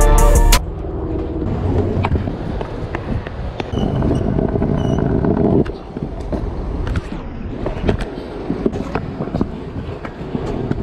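Music cuts off half a second in; then a kick scooter's wheels roll over concrete and brick paving, with many small clacks at the joints. A louder, rougher scraping stretch of about two seconds in the middle, as the deck slides along a stone ledge.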